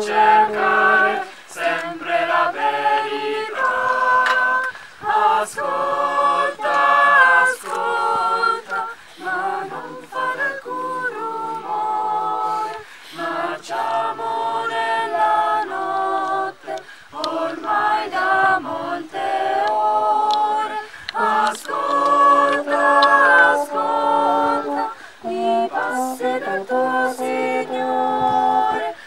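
A choir of mixed young voices singing a cappella, in held phrases with short breaks for breath between them.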